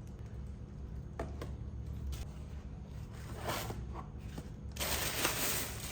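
Faint clicks and light knocks of vegetables and storage containers being handled, then a brief rustle about five seconds in, over a steady low hum.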